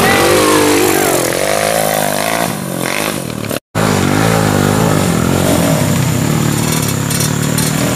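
Trail motorcycle engines revving up and down, their pitch rising and falling again and again. The sound cuts out for an instant about three and a half seconds in, then engine revving carries on.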